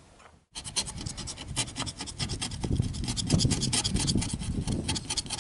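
Quick, repeated scraping strokes against a Chevrolet Chevette's side-window glass, starting about half a second in after a brief silence.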